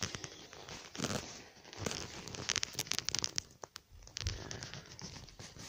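Irregular crinkling and rustling with small clicks and knocks: footsteps and shuffling on a crumpled protective floor sheet while the camera is carried around.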